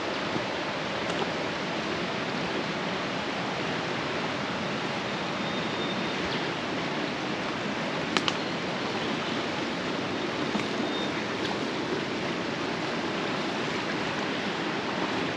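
River water rushing steadily over rocks, the river running high after recent rain. A single sharp click sounds about eight seconds in.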